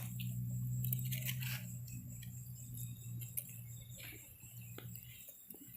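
Crickets chirring steadily, with a low hum underneath that fades out about five seconds in, and scattered faint rustles and clicks.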